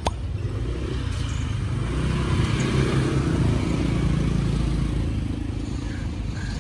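Street traffic with a motorbike passing close by: a low engine hum and road noise that swell in the middle and then ease off.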